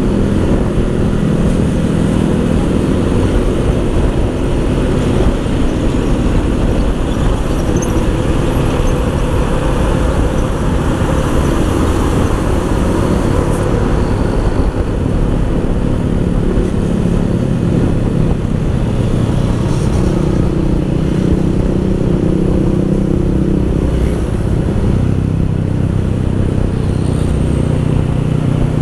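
Motorcycle on the move: its engine running steadily under wind and road noise on the microphone, the engine note shifting up and down now and then.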